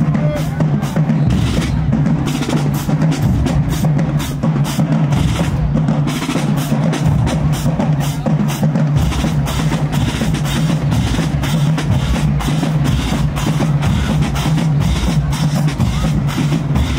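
Marching band drumline playing a marching cadence, snares and bass drums striking fast in a steady rhythm.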